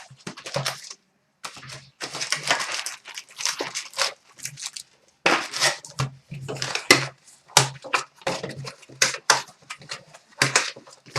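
Foil trading-card pack wrappers being torn open and crinkled by hand, in irregular bursts of rustling and tearing.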